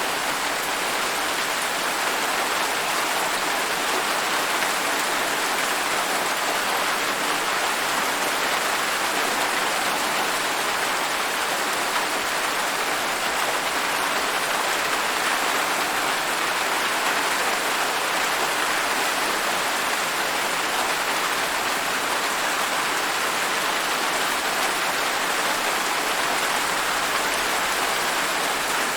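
Steady, even rain falling, a continuous hiss of drops with no thunder.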